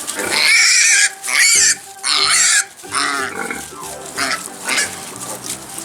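Piglet squealing: three loud, long, high squeals in the first three seconds, then shorter, weaker squeals.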